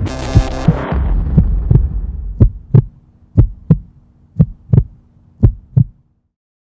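Heartbeat sound effect: paired low thumps, lub-dub, about once a second over a steady low hum. A burst of hiss at the start fades away over a second or two, and everything stops about six seconds in.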